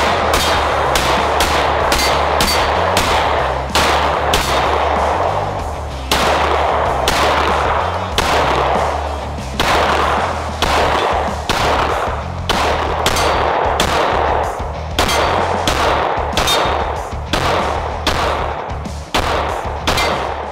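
Steyr L9-A2 9mm striker-fired pistol being fired in a long string of shots, about two a second with a few short pauses, each shot echoing briefly.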